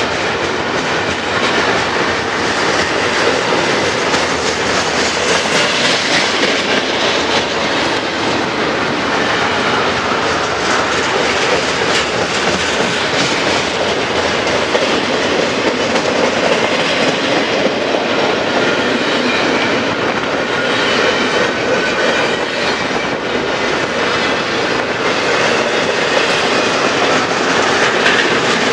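Double-stack intermodal well cars rolling past on the rails: a steady, loud rumble and clatter of steel wheels on track.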